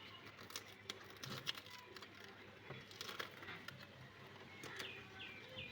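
Faint handling sounds of tape being worked onto the wiring: scattered small clicks and crackles. Near the end a bird chirps four times in quick succession, each chirp falling in pitch.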